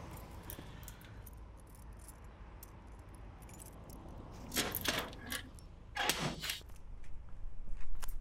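A bunch of keys jangling and clicking as a wall-mounted mailbox is unlocked, in two short bursts about halfway through.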